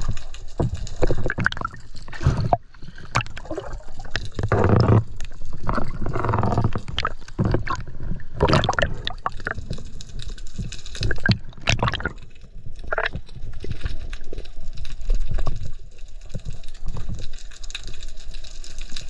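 Water gurgling and churning around an underwater camera in its housing, in irregular bursts with a few sharp clicks.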